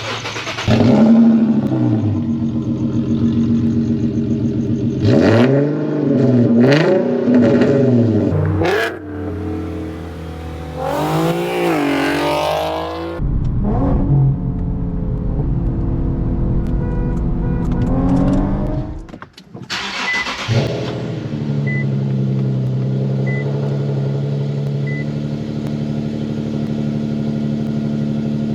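Infiniti Q50 exhaust with a muffler delete, loud, revved up and down several times with one long high rev, then a deep steady rumble, then a steady even run near the end.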